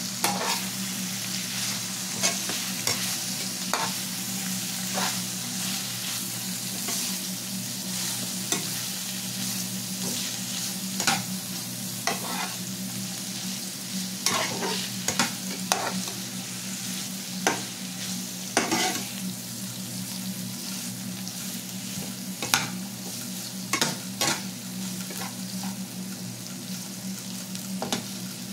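Julienned carrots, cauliflower and onion sizzling in hot oil in a pan while a slotted metal spatula stirs them, with irregular clicks and scrapes of the spatula against the pan. A steady low hum runs underneath.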